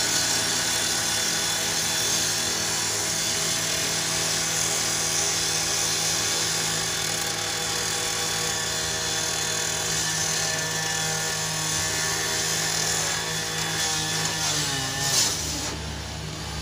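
Two-stroke gas-powered rotary saw running at high speed, its blade grinding into the steel body of a garbage truck. Near the end the engine note falls away, there is a sharp knock, and the saw stops.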